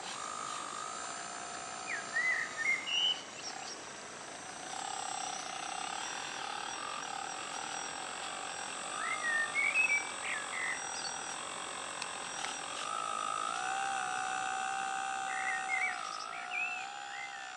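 Steady electric whine of a radio-controlled Menzi 5000 walking excavator model working its arm, the pitch stepping up and down several times as it digs and lifts a bucket of soil. Birds chirp briefly three times.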